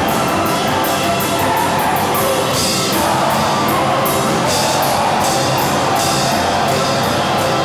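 Lively cabaret stage music from a band with a drum kit, the cymbals keeping a quick, steady beat.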